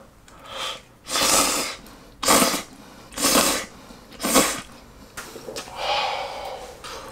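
A man blowing on steaming-hot ramen noodles to cool them: five short breathy puffs about a second apart, then a longer "haa" breath about six seconds in, because the noodles are too hot.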